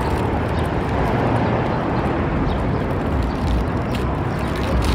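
Steady outdoor background noise: a low rumble under an even hiss, with no single clear event standing out.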